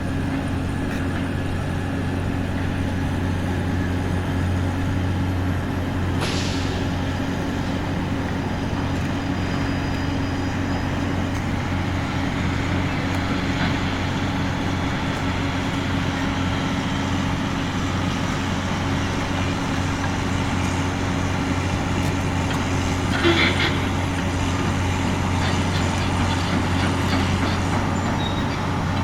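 Heavy diesel engine running steadily at a constant speed, with a brief high hiss about six seconds in and a short higher-pitched sound near 23 seconds.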